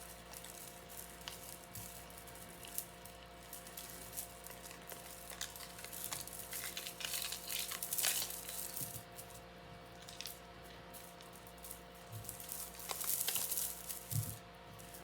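Crinkling of a plastic bag and small clicks as a chain necklace is handled and sorted, over a faint steady hum.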